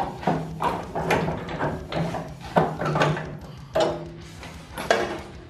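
Tailgate chain of a 1952 Chevrolet 3100 pickup clinking and rattling as it is pulled out and unhooked: a string of sharp metallic clinks, the loudest right at the start.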